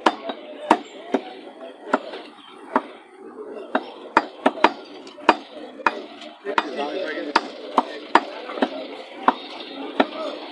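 Heavy meat cleaver chopping beef on a wooden stump chopping block: a steady run of sharp, irregular chops, a little under two a second, with people talking in the background.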